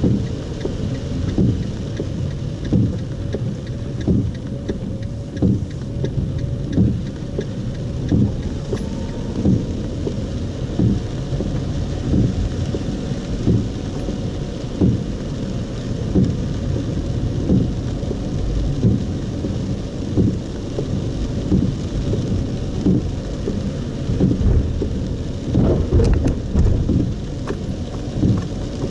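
Heavy rain on a moving car, heard from inside the cabin: a steady low rumble of rain and road noise, with the windscreen wipers thumping in a regular rhythm every second or so. A brief cluster of louder knocks comes near the end.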